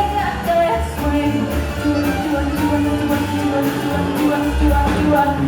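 Music with singing and a steady beat, with a long held note through the middle.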